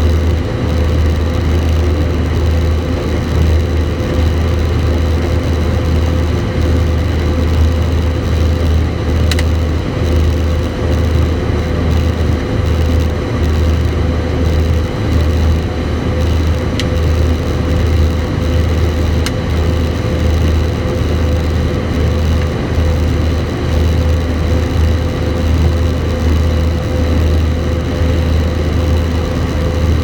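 John Deere 9570 combine running steadily while harvesting soybeans, heard from inside the cab: a loud, even drone of engine and threshing machinery with a low hum and a faint steady whine.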